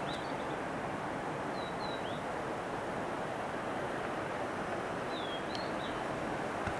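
Steady rushing noise of a waterfall, with a few short, high, falling bird chirps: two about one and a half seconds in and two more about five seconds in.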